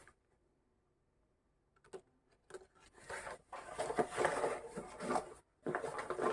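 Packaging being handled and unwrapped: a few light clicks about two seconds in, then a few seconds of rustling and crinkling.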